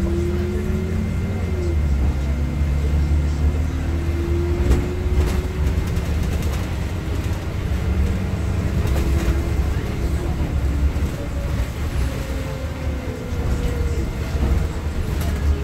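Inside a NovaBUS LFS city bus under way: a steady low rumble with the engine's drone slowly rising and falling in pitch, a faint steady high whine, and scattered light rattles and knocks from the cabin.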